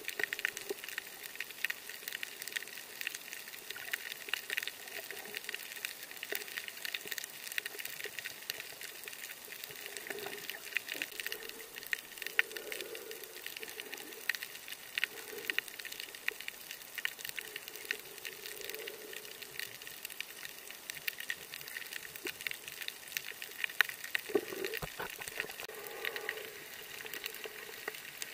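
Underwater sound of a coral reef picked up by a submerged camera: a steady fine crackling and hiss, with soft low whooshes of moving water every few seconds.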